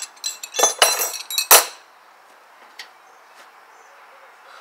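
Steel wrenches clinking and clattering against other hand tools as they are put down, a quick run of sharp metallic clinks over the first two seconds, the loudest about a second and a half in.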